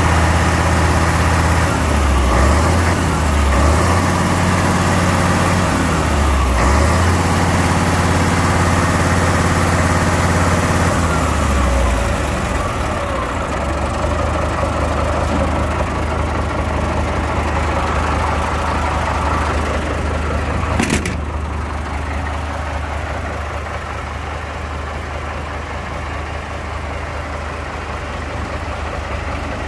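MAN 26.322 truck's six-cylinder diesel engine running, its sound uneven over the first dozen seconds and then settling into a steady idle. A single sharp knock comes about twenty-one seconds in.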